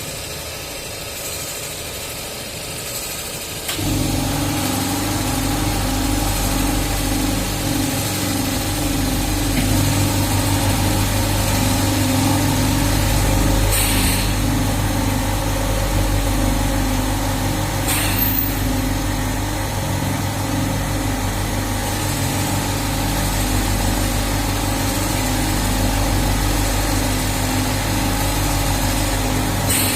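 Mattress tape edge sewing machine starting up about four seconds in and then running steadily: a continuous motor hum with a fast, even repeating pattern. A few short clicks sound over it later on.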